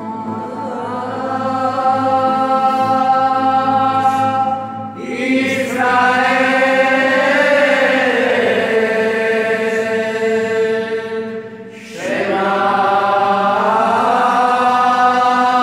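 A small group of voices singing a song together in a church, the long held notes echoing through the building. The singing dips briefly about five seconds in and again near twelve seconds as each new phrase begins.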